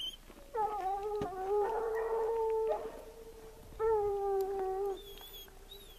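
Hound baying in two long, drawn-out howls, the first about two seconds long and the second about one second: trail hounds giving voice on a fresh mountain lion track.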